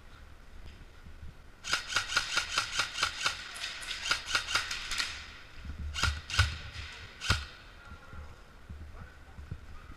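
Airsoft electric rifle (VFC HK416) firing a rapid run of single shots, about six a second for some three seconds, then three more single shots.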